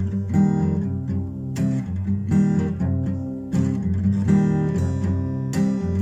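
Acoustic guitar playing a downhome blues instrumental passage, strummed and picked chords in a steady rhythm.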